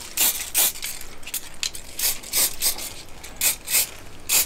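Handheld static grass applicator being shaken over the scenery, grass fibres rattling and hissing through its mesh sieve in a quick rhythm of about two to three shakes a second.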